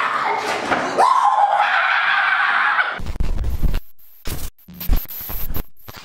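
A person screaming, a strained drawn-out cry that rises in pitch about a second in. About three seconds in it cuts to crackling video static that stutters on and off.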